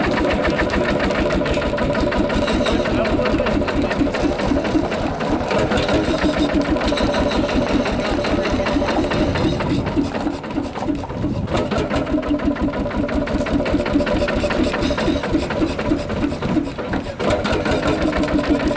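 HSCS G-35 tractor's single-cylinder two-stroke hot-bulb engine running with a fast, even beat, dipping briefly twice.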